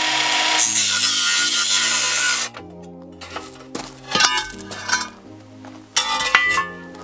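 Cordless angle grinder with a cutting disc slicing through a metal intake manifold, a loud, harsh grinding hiss with a steady whine that cuts off suddenly about two and a half seconds in. After it stops, a few short clinks of metal are heard.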